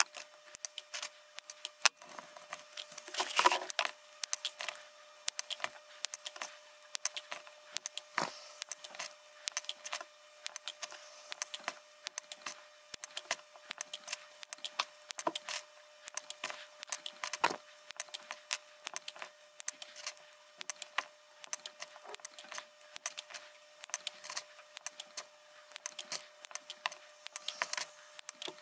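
Many small sharp clicks and light metallic rattling as the thin wire leads of loose RGB LEDs knock together while they are picked from a pile, mixed with the snips of flush cutters trimming the leads. The clicks come several a second, with a louder flurry about three seconds in.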